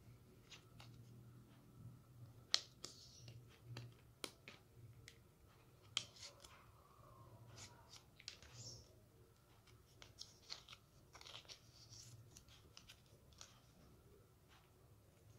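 Clear plastic photocard sleeves and a rigid plastic toploader being handled: scattered light clicks and taps with short crinkling rustles as cards are slid out and moved. A faint steady low hum runs underneath.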